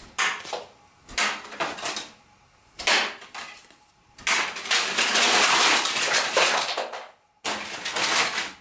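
Playing cards clattering as a tall house of cards is knocked down and collapses. A few short bursts of papery slapping and rustling come first, then a long, louder rush of cards falling and sliding across a wooden tabletop, which breaks off suddenly and starts again near the end.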